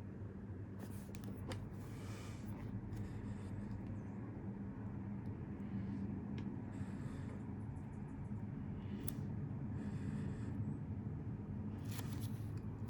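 Packaging being handled during an unboxing: intermittent rustling and scraping every second or two, over a steady low hum.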